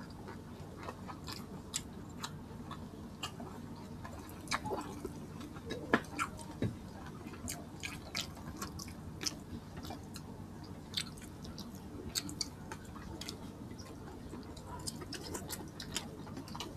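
Close-miked chewing and wet mouth noises of people eating rice and boiled pork with their hands, with many short, scattered clicks, over a faint steady low hum.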